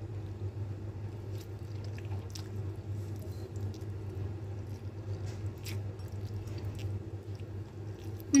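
A person chewing a mouthful of stir-fried wet noodles, with faint scattered wet clicks, over a steady low hum.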